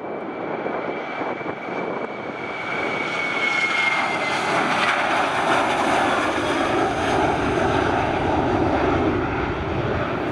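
Boeing 737 jet airliner taking off at takeoff power: a high engine whine that sags slightly in pitch over the first few seconds, under a jet roar that swells from about three seconds in and stays loud.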